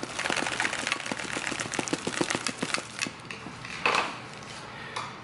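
Magazine pouch holding two 30-round 5.56 magazines in an MRPKI 2 retention insert being shaken hard, to show the magazines stay seated. The gear makes a fast rattle of clicks and knocks for about three seconds, then a single louder knock about four seconds in.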